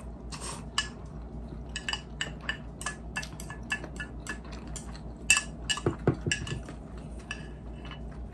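Close-miked eating sounds: chopsticks clicking and clinking against a ceramic dipping bowl and plate many times, with a short slurp of noodles about half a second in.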